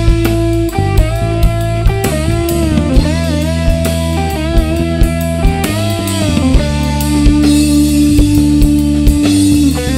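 Progressive rock band playing: a lead guitar melody with bent notes over bass and drum kit, settling into one long held note about seven seconds in.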